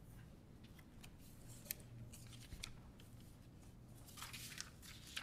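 Faint rustling of clothing and scattered light clicks and knocks as a small congregation stands up from its seats, over a steady low hum, with a denser burst of rustling near the end.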